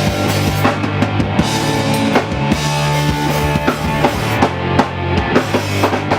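Live rock band playing without vocals: a drum kit drives a steady beat of bass drum and snare hits over held bass notes.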